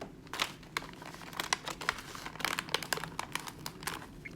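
A chip bag and its paper cover crinkling in irregular crackles as they are handled and pressed together.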